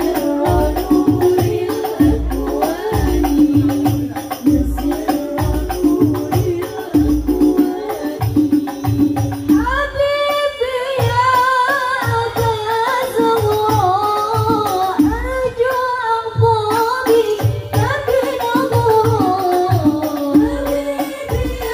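Music with singing over a steady, evenly repeating drum beat and tambourine. A held tone carries the first half, and a wavering melody line takes over about halfway through.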